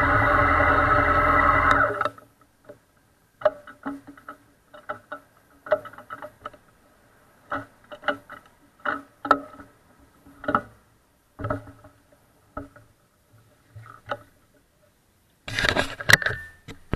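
A loud steady hum cuts off suddenly about two seconds in. Sparse, soft plucked notes like a quiet guitar follow. Near the end a gloved hand rustles and knocks against the camera.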